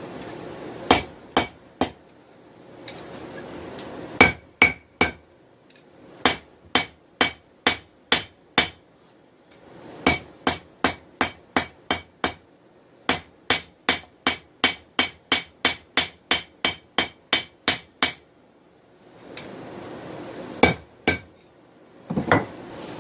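Hand hammer striking hot 416 stainless steel on an anvil while forging a knife blade, in runs of sharp ringing blows about two to three a second with short pauses between. A steady rushing noise fills the pauses.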